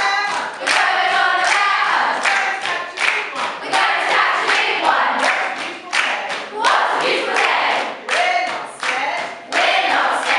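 A choir of mostly women's voices singing and chanting together in rhythm, with sharp hand claps mixed in.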